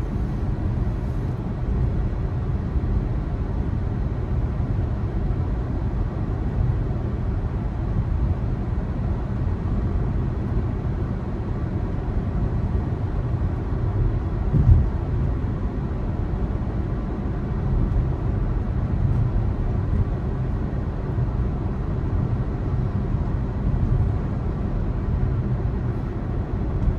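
Steady road and tyre rumble heard inside the cabin of a 2020 Tesla Model 3 Performance, an electric car, driving along. There is one short thump about halfway through.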